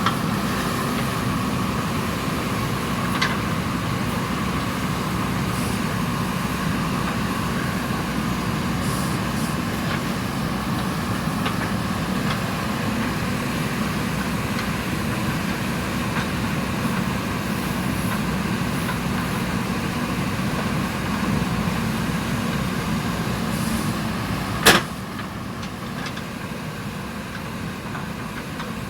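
JCB 3DX backhoe loader's diesel engine running steadily while it digs. A single sharp clank comes near the end, after which the engine sound is quieter.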